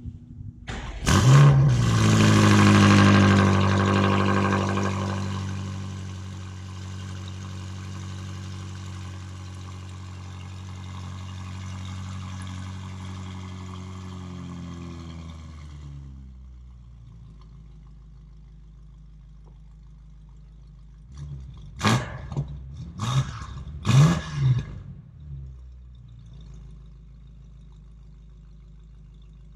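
BMW F90 M5 Competition's twin-turbo V8 starting: a loud flare as it catches, then a high idle that slowly settles lower over the next fifteen seconds or so. Later, three quick revs of the engine over the settled idle.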